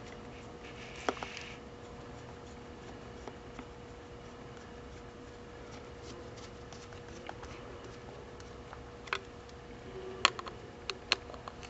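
Sparse light clicks and taps of a clear acrylic pump reservoir being handled and screwed in place, several close together near the end, over a faint steady hum.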